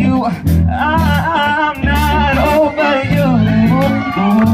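Live rock band playing a funky song: drums, bass guitar and electric guitar, with a wavering, wordless lead melody over them.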